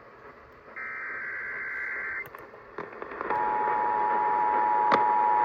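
Emergency Alert System monthly test heard over AM radio with steady hiss: about a second in comes a burst of EAS digital header data tones lasting about a second and a half. A little after three seconds in, the EAS attention signal begins, two steady tones sounding together. A single crackle of static near the end.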